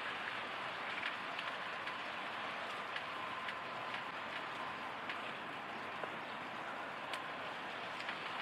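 Steady outdoor background hiss over open water, with a few faint scattered clicks and a faint thin tone early on.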